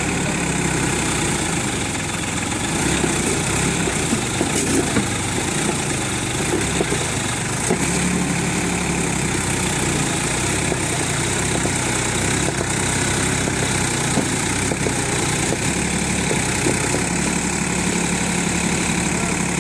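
A 45 HP Sonalika tractor's diesel engine running steadily at a low, even speed.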